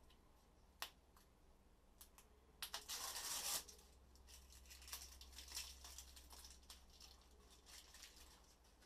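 Faint scraping and scratching of hands working on a long metal rod: a sharp click about a second in, a dense rasp lasting about a second near the three-second mark, then scattered lighter scratches.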